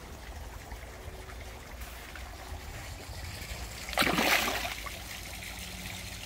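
A large koi splashing at the surface of a garden pond about four seconds in, one short burst of splashing water, over a steady low trickle of pond water.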